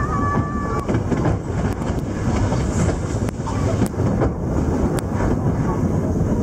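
Puffing Billy narrow-gauge steam train running, heard from an open carriage: a steady rumble of wheels on the track with several sharp clicks. A high steady tone dies away in the first second.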